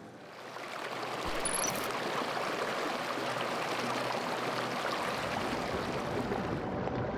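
Small mountain stream rushing and splashing over rocks in a steady flow of water. The sound swells in over the first second or so, then holds even.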